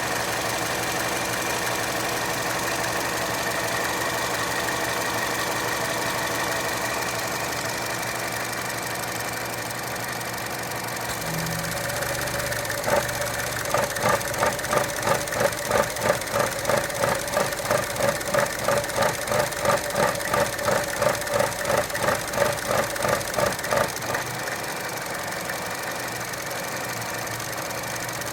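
2012 Chevy Cruze's 1.4-litre turbo four-cylinder engine idling, steady at first, then for about ten seconds in the middle surging in a rhythmic pulse about twice a second before settling again. The pulsing is the rough idle that appears only with the oil dipstick pulled, which the owner suspects points to a failed PCV check valve or a leaking valve cover seal.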